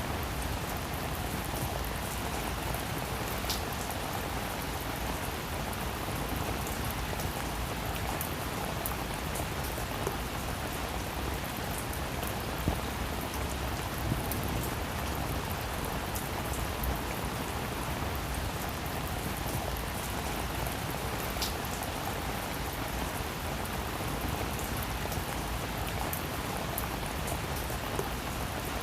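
Steady rain falling on a roof, an even patter with scattered individual drops ticking a little louder.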